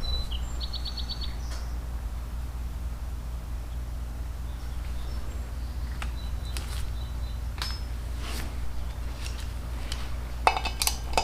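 Light metallic clinks of bolts and hand tools being handled: a quick run of about seven ticks about half a second in, then scattered single clicks, several close together near the end, over a steady low hum.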